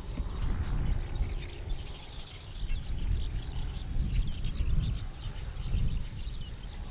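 Gusty wind buffeting the microphone, rising and falling, with many small birds chirping and warbling throughout.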